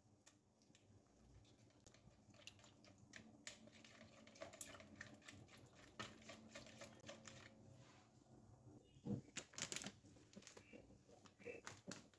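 Wire whisk beating eggs, butter and milk in a mixing bowl: quiet, quick clicking and tapping of the wires against the bowl, with a short cluster of louder clicks about nine seconds in.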